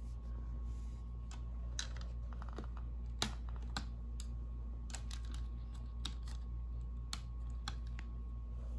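Plastic Snap Circuits parts clicking and tapping as pieces are unsnapped and snapped onto the grid base: irregular sharp clicks, the loudest about three seconds in, over a steady low hum.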